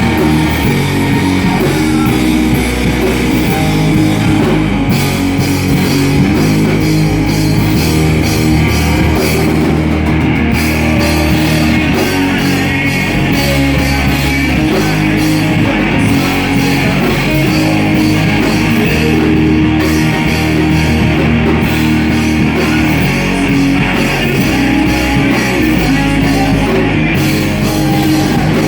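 Live rock band playing loud and continuous, with electric guitar and drum kit.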